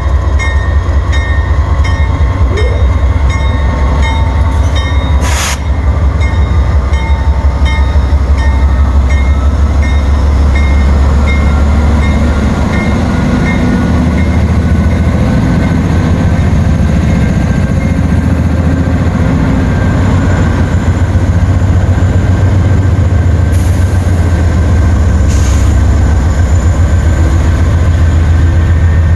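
Norfolk Southern freight train passing: a loud, steady rumble of wheels on rail, with a sharp clank about five seconds in and two more later on.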